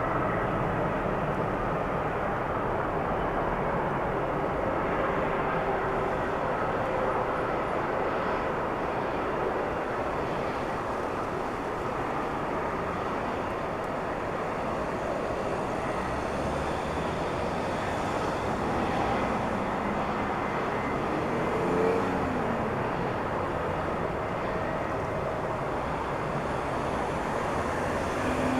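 Jet airliner engines heard at an airport: a steady rush with faint whining tones that slowly fall in pitch.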